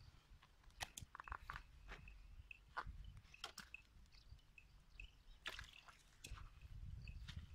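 Faint scattered clicks and rattles as a woven bamboo fish trap is handled and opened, with small wet squishes and splashes as fish go into a basin of water.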